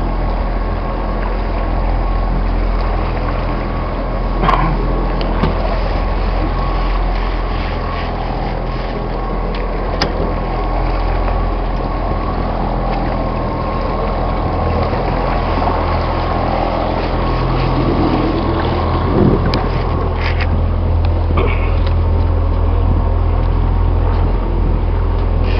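A charter fishing boat's engine running steadily, a low even hum under the wash of water, with a few light clicks.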